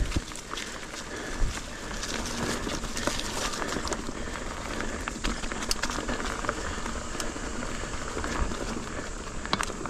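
Ibis Ripley AF mountain bike ridden over rooty dirt singletrack: continuous tyre and drivetrain noise, with scattered sharp knocks and rattles as the wheels hit roots, one louder knock about a second and a half in.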